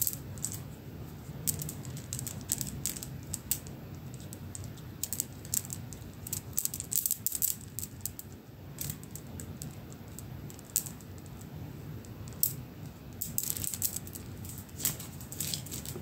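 A string of beads clicking and rattling against one another as bare toes hold and shake it: irregular sharp clicks, coming in quick flurries about five to seven seconds in and again near the end.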